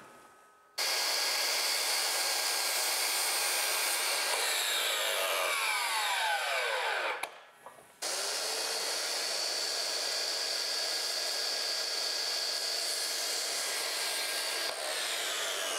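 Sliding miter saw starting up and cutting a wood trim board, then winding down with a falling whine. It starts again about eight seconds in and makes a second long cut.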